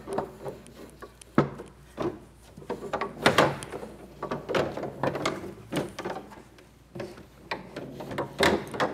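Foosball game in play: the rods slide and spin in the table's bearings, and the plastic men knock the hard ball about. Many sharp knocks come at irregular intervals.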